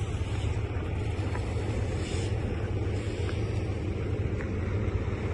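A steady low rumble of a running engine, with a constant noise haze above it.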